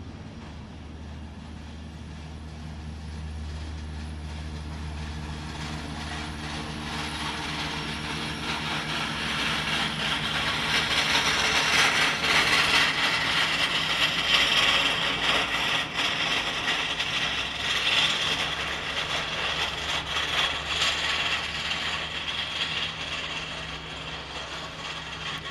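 Jet engines of a Delta Boeing 777 rolling along the runway: a roar that builds to its loudest about halfway through and then slowly eases as the jet moves away, over a steady low hum.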